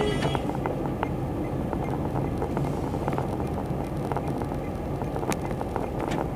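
Car cabin noise while driving slowly: a steady low rumble of engine and tyres, with scattered light clicks.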